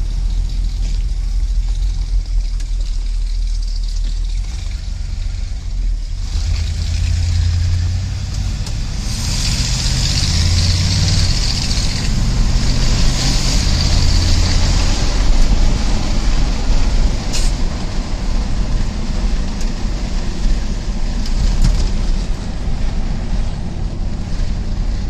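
1982 Ford F-150 4x4 pickup heard from inside the cab while driving: a steady low engine and exhaust rumble with road noise. A stretch of hiss comes in the middle.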